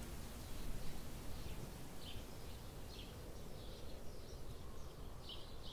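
Forest ambience: a steady low rumble with a small bird calling in short, high chirps about once a second from about two seconds in.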